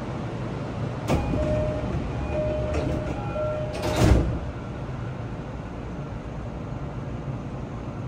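Passenger doors of an E233 series 7000 commuter train closing. A door chime sounds three short repeated notes, then the sliding doors shut with a heavy thud about four seconds in, over the steady hum of the stopped train.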